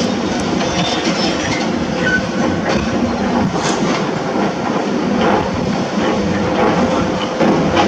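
Excavator working: its diesel engine runs steadily under a dense mechanical din, with scattered metallic clanks and knocks.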